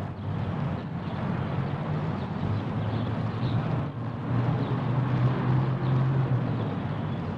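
Street traffic noise: a steady rumble of vehicles, with a low engine hum that grows louder about halfway through.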